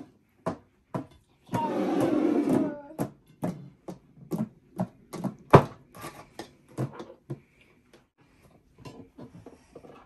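Upturned ceramic bowls being moved about and set down on a tabletop: a run of separate knocks and clinks, the loudest about halfway through, with about a second of scraping noise near the start.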